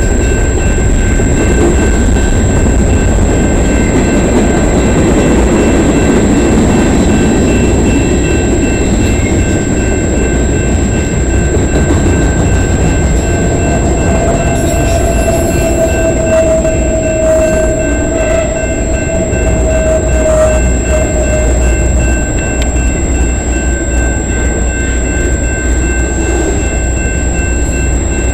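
Freight cars rolling past at speed: a steady rumble of steel wheels on rail. From about halfway through, a wheel squeal sounds for several seconds, then fades out.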